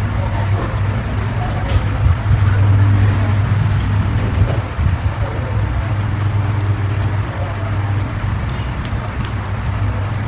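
Close-miked chewing of raw vegetables and food, with a few sharp crunches, over a steady low hum.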